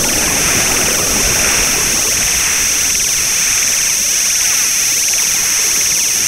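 Loud, steady electronic noise: a constant high hiss over a rough, crackling wash, with a swirling, phasing texture in the middle.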